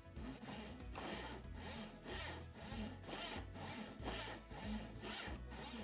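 Handsaw cutting relief kerfs across a hickory axe-handle blank held in a vise, back-and-forth strokes about two a second. Background music plays underneath.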